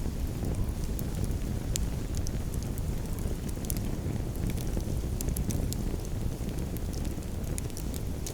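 Wood campfire crackling, with many sharp, irregular pops and snaps over a steady low rumble.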